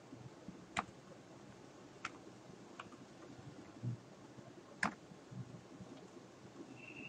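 A few separate, faint clicks of computer keyboard keys and a mouse, the loudest about five seconds in, over a low steady background noise.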